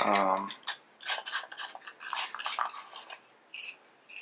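Hands handling small metal-and-plastic iPhone lens attachments: scattered clicks, light clinks and rubbing as the lens parts are turned over and picked up.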